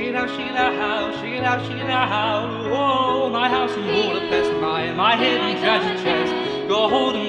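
A song playing: a singing voice over sustained instrumental backing.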